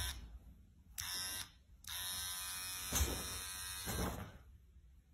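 Cordless electric hair clipper switched on twice in short buzzes, then run for about two seconds with a steady buzz.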